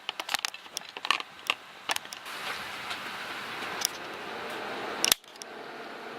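Quick sharp clicks and scrapes of a 3D-printed plastic mount being handled and pushed onto a camera's hot shoe. These are followed by a steadier hiss that cuts off suddenly with a click.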